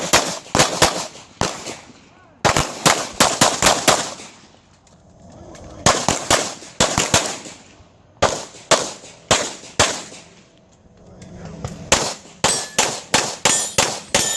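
Pistol shots fired fast in five strings of several shots each, separated by pauses of one to two seconds. The last string is the quickest, about four shots a second. This is a timed USPSA stage run.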